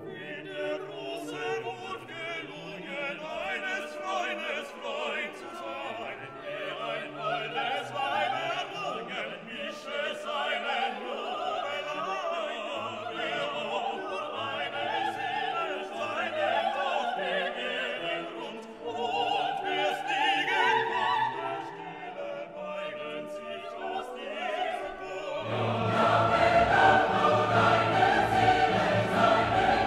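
Background music: classical singing with orchestral accompaniment, growing fuller and louder about 25 seconds in.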